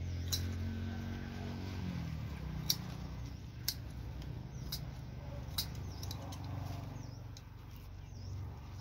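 Sharp snips about once a second as flowering mustard green stems are cut, over a steady low engine hum that drops in pitch about two seconds in.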